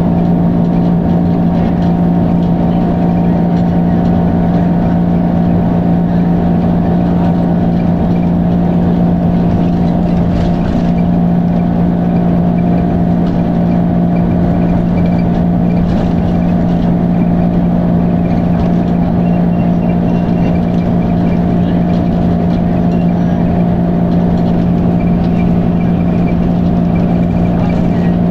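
Dennis Arrow bus engine running at a steady pitch, a constant loud drone with no rise or fall in revs.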